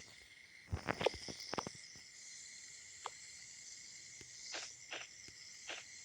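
Small toys being handled and set down by hand: a quick cluster of light clicks and taps about a second in, then a few soft brushing sounds, over a steady faint hiss.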